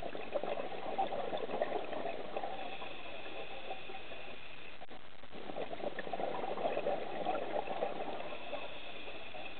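Scuba diver's exhaled bubbles bubbling out of the regulator in two breaths, one at the start and one about five seconds later, with a quieter spell between them.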